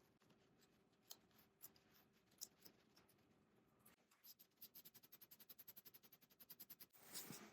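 Scissors faintly snipping and trimming seat foam to shape: scattered small clicks, then a quick regular run of snips, about seven a second, for a couple of seconds, and a brief louder rustle near the end.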